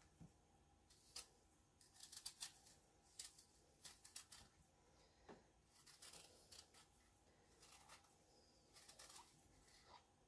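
Kitchen knife peeling an apple by hand: quiet, short scraping strokes of the blade through the skin, coming in irregular clusters.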